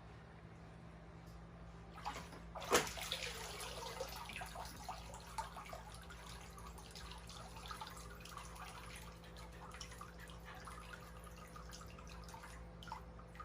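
A sharp splash about two and a half seconds in, as a Shiba Inu dog jumps into a pool, followed by water sloshing and dripping.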